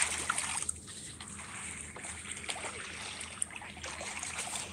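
River water splashing right at the start, then trickling and lapping with small drips.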